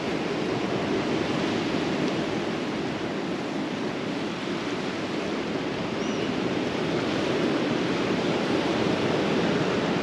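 Steady rush of ocean surf washing onto the beach.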